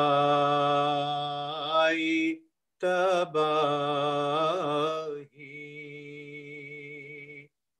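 A man singing a marsiya (Urdu elegy) solo and unaccompanied, holding long drawn-out vowels whose pitch wavers slowly. Heard over a Zoom call, the voice cuts out abruptly about two and a half seconds in. It resumes, and a last, quieter held note stops suddenly near the end.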